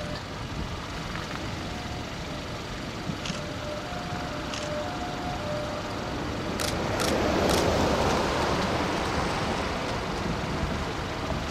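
Steady low rumble of a vehicle running, swelling about seven to nine seconds in.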